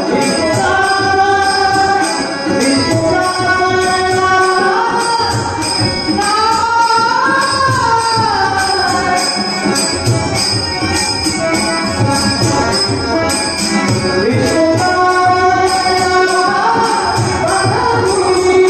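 Marathi devotional abhang singing with harmonium accompaniment and steady jingling percussion. The singer holds long notes with wavering ornaments and a tremulous voice.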